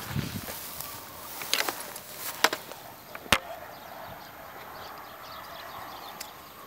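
Rustling and scraping in grass and soil as hands search the ground, with three sharp clicks in the first half, then a quieter stretch.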